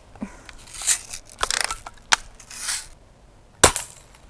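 Daisy Red Ryder lever-action spring BB gun fired twice, about a second and a half apart, each shot a sharp snap. Between the shots comes the rasp of the lever being worked to cock it.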